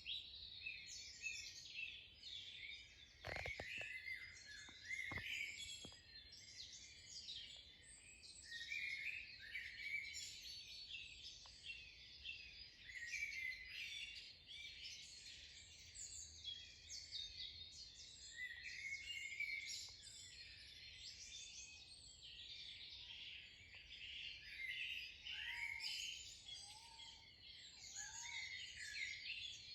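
Dawn chorus of many songbirds singing and chirping over one another continuously, with a couple of faint knocks about three and five seconds in.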